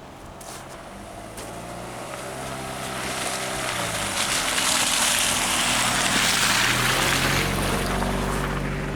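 A motor vehicle's engine drawing near and growing louder, with a rising hiss that is loudest about halfway through.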